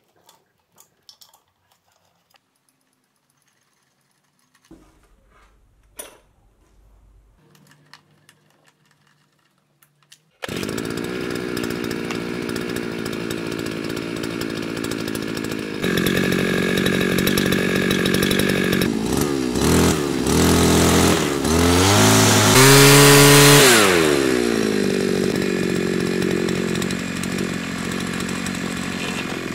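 Faint clicks and handling sounds at first. Then, about a third of the way in, an Intertool brushcutter's small two-stroke engine, fitted with a homemade tube muffler, is heard running at idle. About two-thirds through it revs up in a few throttle blips to a peak and falls back to idle.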